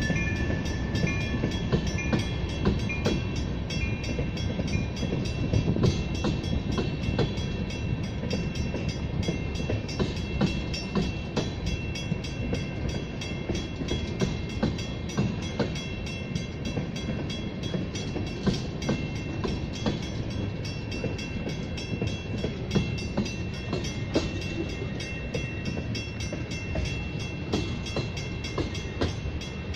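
Freight train of tank cars rolling past close by: a steady heavy rumble with frequent wheel clicks and knocks over the rail joints. A high ding repeats about twice a second over the first few seconds and stops about three seconds in.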